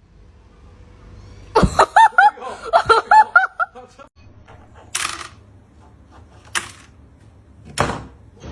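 High-pitched laughter: a quick run of short rising-and-falling bursts lasting about two seconds. Three brief, breathy noisy bursts follow later.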